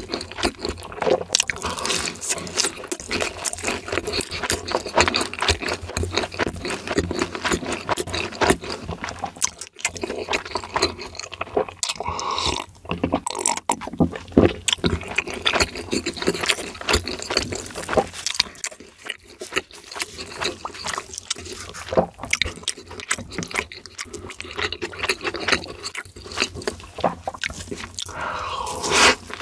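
Close-miked eating: a steady stream of crunchy bites and chewing of fried food, with wet, saucy mouth sounds.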